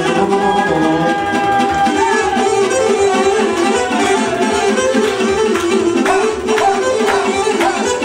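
Live dance music from a party band: a saxophone playing the melody over keyboard backing with a steady, driving beat.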